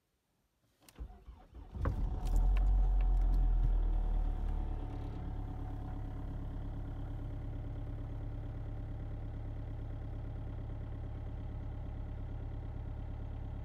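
Opel Astra G 2.0 DTi four-cylinder turbodiesel cold-started at about −15 °C: a second or so of starter cranking, the engine catches about two seconds in, runs loudest for a couple of seconds, then settles into a steady idle.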